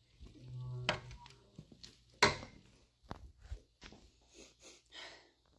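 A door being opened: a short low groan and a latch click, then a sharp loud knock a little over two seconds in, followed by scattered footsteps scuffing and crunching over debris on the floor.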